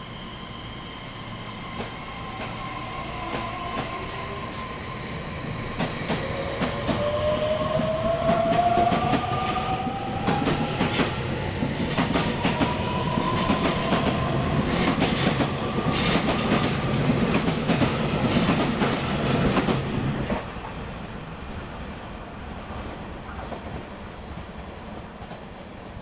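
Taiwan Railways EMU3000 electric multiple unit pulling out and gathering speed: a whine of several tones rising steadily in pitch, with rumble and quickening clicks of wheels over rail joints. The noise drops off sharply about twenty seconds in as the train clears the platform, leaving a fading rumble.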